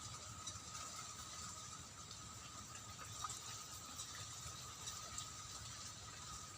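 Wind rumbling on the microphone, with a faint steady high whine and a few small faint ticks.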